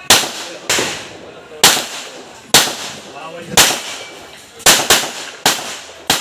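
A string of handgun shots fired roughly a second apart, with two in quick succession about two-thirds of the way through, each crack trailing off briefly.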